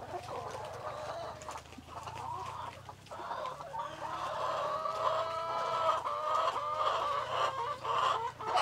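A flock of laying hens (Dominant CZ, Rhode Island Red and native chickens) clucking together in a continuous, overlapping chorus while they feed, growing louder toward the end.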